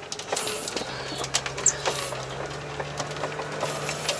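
All-terrain vehicle driving through deep snow: a steady engine hum that settles in about a second in, with many small clicks and rattles over it.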